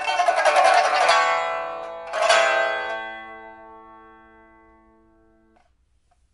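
Pipa, a 1999 Man Ruixing instrument of old huangtan rosewood newly fitted with a replacement soundboard and frets, with a steel first string and copper strings, played in rapid strokes, then one loud final chord about two seconds in. The chord rings and fades for a few seconds before being damped.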